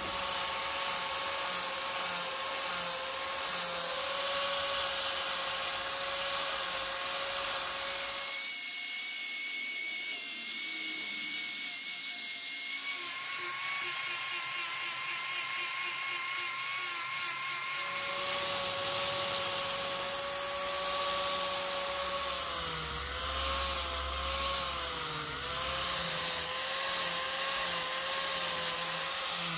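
Angle grinder running on a steel axe head, its disc grinding the rust off. A steady motor whine that wavers and dips in pitch in the second half as the disc is pressed onto the steel.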